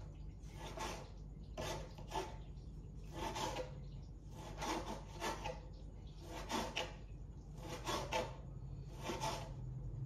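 A cleaver slicing through smoked pork and meeting a wooden chopping board, a dozen or so short cutting strokes in a steady rhythm, a little under a second apart.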